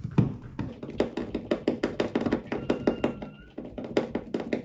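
A screw being driven by hand into a tubing clamp on a plastic kayak deck: a run of small, irregular clicks and taps, several a second.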